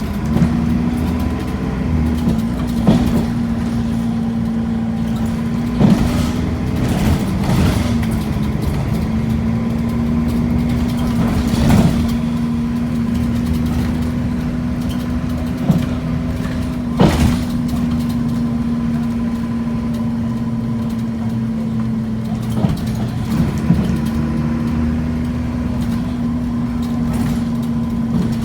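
Single-deck bus heard from inside, its engine and drivetrain giving a steady, even-pitched drone at a constant speed. Sharp knocks and rattles from the body come through now and then, a few of them loud.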